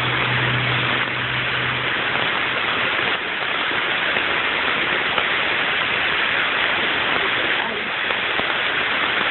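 Heavy rain mixed with hail pouring down in a dense, steady hiss. A low steady hum sits under it for the first couple of seconds, then stops.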